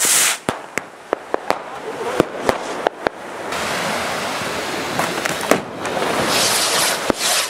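Fireworks going off: many sharp firecracker bangs at irregular intervals, with loud rushing hisses at the very start and again about six seconds in.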